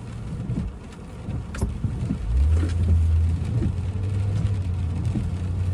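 Low, steady vehicle engine rumble heard from inside a car, growing louder about two seconds in and then holding steady, with a few faint scattered taps.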